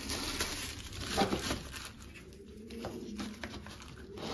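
Thin plastic bag crinkling and rustling as it is handled and squeezed by hand.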